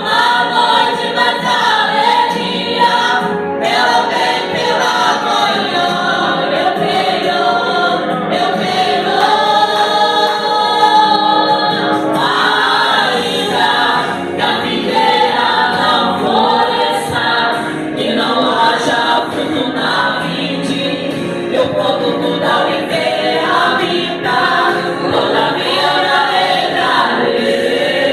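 Church praise group singing a worship song together, several voices in harmony as a choir.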